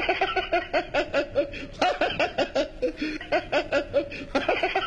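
A man laughing in a quick run of short chuckles, about four or five bursts a second.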